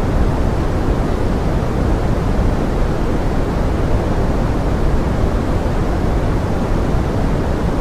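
Steady pink noise: an even, unbroken rushing hiss, heavier in the low end.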